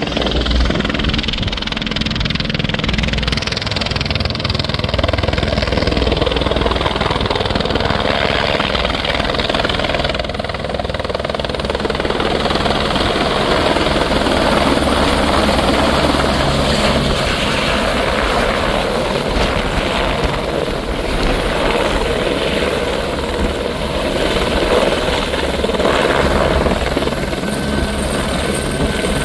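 Single-engine turbine helicopter of the AS350 Écureuil type running close by, its rotor and turbine noise loud and steady as it hovers low and settles onto the pad. A thin high whine comes in near the end.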